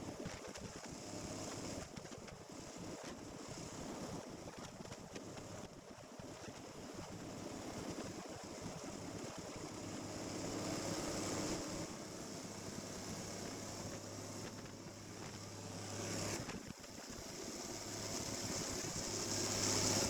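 Snowmobile engine running steadily, with wind noise on the microphone. The sound dips briefly about three-quarters of the way through, then grows louder toward the end.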